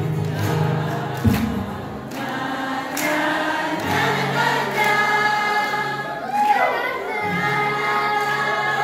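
Acoustic guitar accompanying many voices singing together in long held notes, with phrases breaking every couple of seconds.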